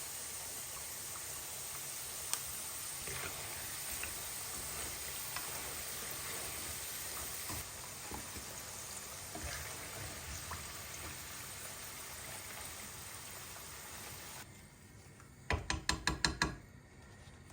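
Food frying in hot oil in a pan: a steady sizzle with small crackles, which stops suddenly. Near the end comes a quick run of about six sharp knocks.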